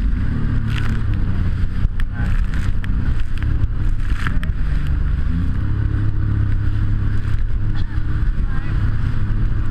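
Jet ski engine running steadily, its pitch rising about halfway through as it speeds up, with scattered sharp knocks on the microphone.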